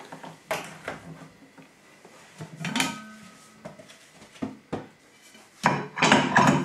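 Knocks and clatter of a stainless steel bowl and its plastic lid being handled, with a brief metallic ring about three seconds in and a louder clatter near the end.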